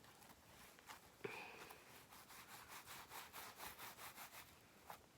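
Faint squishing and clicking of slime mixed with Model Magic clay being kneaded and poked with the fingers, a soft run of about three squelches a second through the middle.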